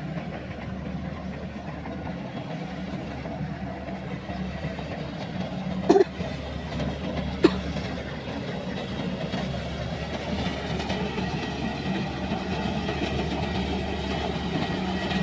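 Kubota combine harvester running, a steady engine drone that grows a little louder toward the end. Two short sharp knocks stand out about six and seven and a half seconds in.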